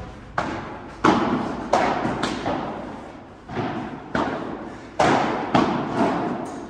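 Padel rally: about ten sharp hits of the ball off paddles and the court at uneven intervals, each echoing in the large indoor hall.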